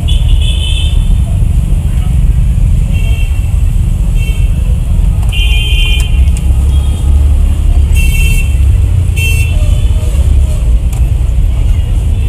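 Loud steady low roar of a street stall's gas burner under a large frying pan, with several short high-pitched toots over it.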